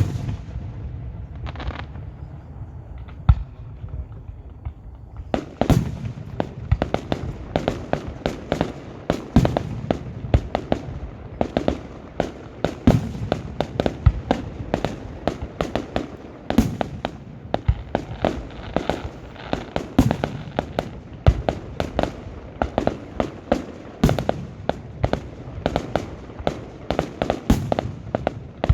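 Fireworks display: a few separate bangs, then from about five seconds in a dense, rapid barrage of sharp bangs and cracks, several a second.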